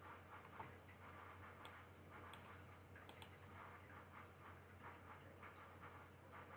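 Near silence: room tone with a faint steady low hum and faint, irregular soft ticks.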